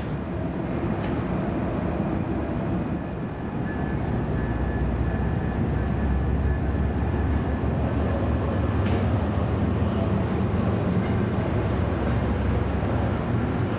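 MBTA commuter rail train, a diesel-hauled push-pull set, running through the station. It makes a steady low rumble of engine and rail noise that grows a little louder about four seconds in.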